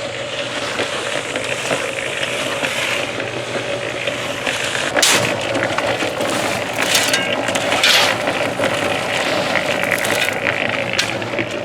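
Concrete mixer running: a steady motor hum under a noisy wash of churning concrete, with louder rushes about five, seven and eight seconds in.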